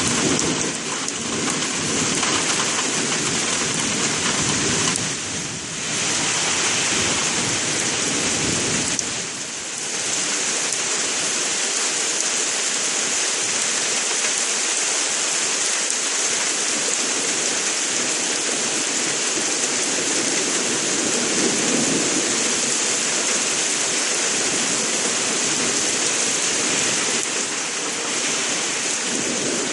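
Heavy rain pouring down in a steady, dense hiss. It eases briefly about five and nine seconds in.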